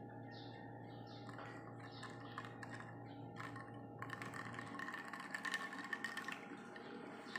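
Ice cubes clicking and crackling in a glass of water: scattered small clicks that turn into a denser crackle about four seconds in, over a faint steady hum.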